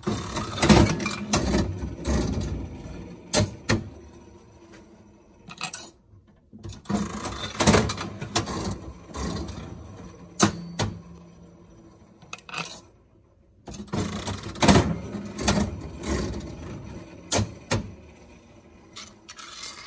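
Mills-mechanism upright slot machine played three times. Each handle pull sets the reels whirring and clicking, and a few seconds later they stop with sharp clacks.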